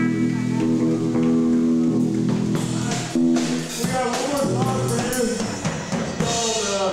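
Live rock band playing loud: a sustained electric guitar chord for the first three seconds, then drums crashing in with a voice over the band.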